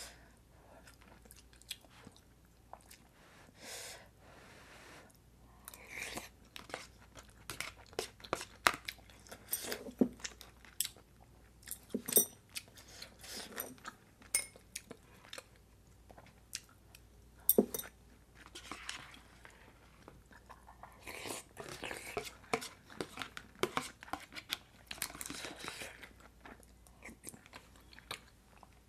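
Close-up eating sounds: chewing, with scattered sharp clicks and a few ringing clinks of metal chopsticks and spoon against ceramic bowls.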